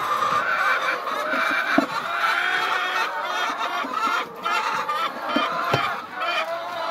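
Hens clucking and calling together in a continuous chorus, with a few short knocks about two seconds in and again near the end.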